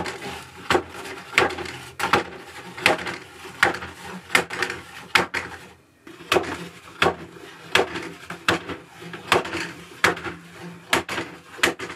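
3D-printed plastic clacking: the notched locking knob on a multi-cassette Nerf blaster is turned and the rotating dart cassettes knock against the lock and drop into the next position. It is a string of sharp knocks, about one or two a second.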